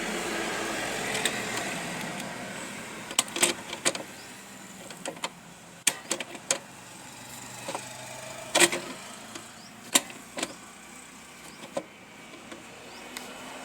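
Sharp metallic clicks and taps from a hand tool tightening a nut on a new socket in an amplifier chassis, coming irregularly about a dozen times over a steady background hiss.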